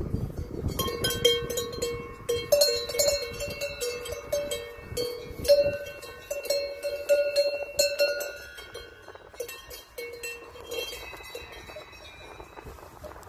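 Cowbells on cows' neck collars clanking and ringing irregularly as the animals move about, busiest through most of the stretch and dying down near the end.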